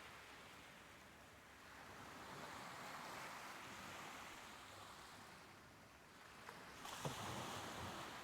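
Soft ocean waves washing in and drawing back, swelling about two seconds in and easing off, then a fresh wave breaking about seven seconds in.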